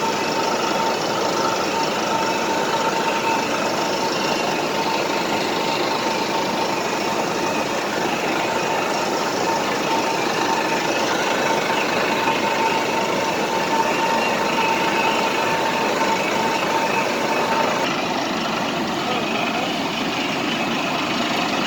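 River waterfall rushing steadily, a loud even roar of falling water. A steady high tone runs over it and stops about eighteen seconds in.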